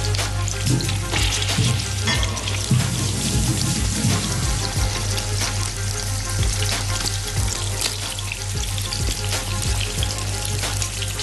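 Boiled chicken pieces frying in oil in a non-stick pan, being browned, with a constant sizzle and many small crackling pops over a steady low hum.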